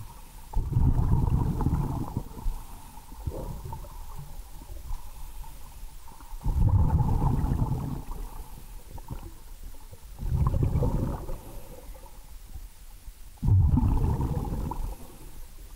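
A scuba diver's exhaled breath bubbling up past the underwater camera in four low, rumbling bursts, one every three to four seconds, with a faint steady tone between them.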